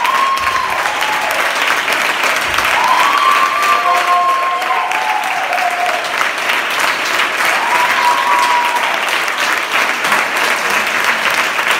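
Theatre audience applauding steadily at a curtain call, dense clapping throughout. A few long, high voices call out over the clapping about three times.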